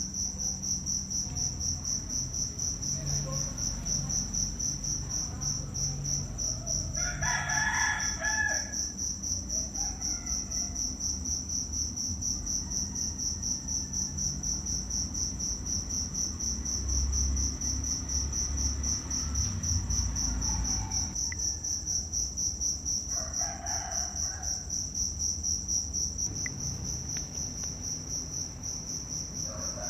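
Insects trilling, a high steady pulsing chirr. Chickens call briefly twice, about a quarter of the way in and again about three quarters of the way in.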